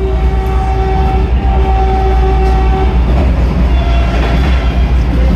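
Vande Bharat Express running at about 110 km/h, heard from inside the coach: a heavy steady rumble of wheels on rail. A horn sounds in two long, steady blasts over the first three seconds, then rattling track noise.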